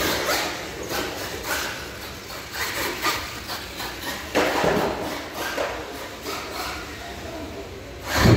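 1:10 scale solid-axle RC monster truck running on a carpeted course, with repeated knocks and clatters as it bounces around. A heavy thump comes right at the end.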